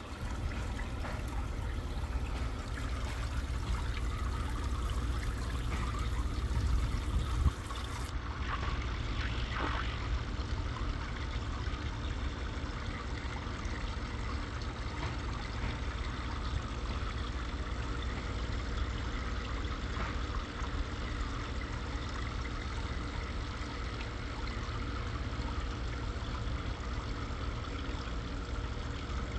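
Water trickling and splashing steadily from an overhead tray filter down into an outdoor aquarium, with a low rumble underneath. There is one bump about seven seconds in.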